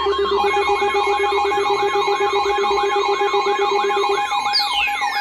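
Layered electronic emergency alert tones: a fast warbling tone sweeping up and down about three times a second over steady alarm tones, one of which cuts off about four seconds in. Near the end a siren-like tone starts falling from high pitch.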